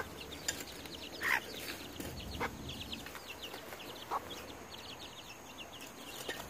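Chickens clucking now and then, a few short separate calls, over a run of quick high chirps.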